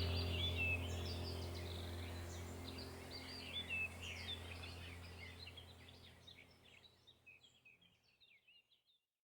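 Birds chirping over a steady low hum, fading out gradually to silence about two-thirds of the way through.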